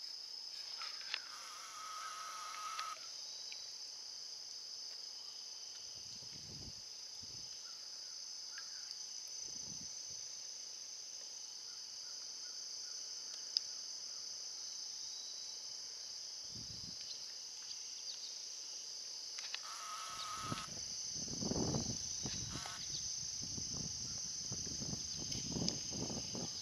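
Insects buzzing in a steady, high-pitched continuous chorus. A short pitched call comes in twice, near the start and about twenty seconds in, and soft low rumbles come and go, thickening over the last few seconds.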